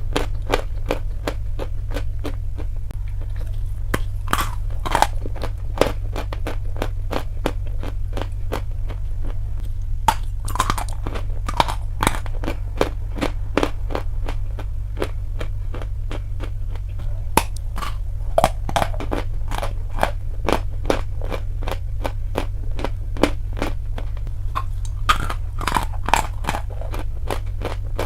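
Close-up biting and chewing of dry chalk: a dense run of sharp, crackly crunches, with a steady low hum underneath.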